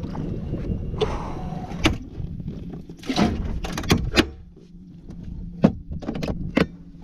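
Wind noise on the microphone, with a string of sharp knocks and thumps on the boat, about seven in all, spread through the second half.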